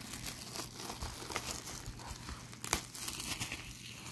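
Clear plastic shrink wrap on a Blu-ray case crinkling and tearing as it is peeled off by hand, with irregular crackles and one sharper snap a little over halfway through.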